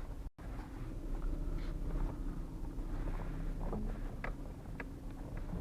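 Renault Duster cabin on a rough road: a steady low road rumble with scattered short creaks and clicks. The speaker puts the creaks down to dry door-seal rubbers rubbing on the body metal as the body twists.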